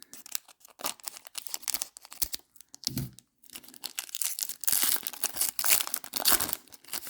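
Wrapper of a tightly sealed baseball card pack crinkling and tearing as it is worked open, in irregular crackles that thicken into a longer stretch of tearing past the middle.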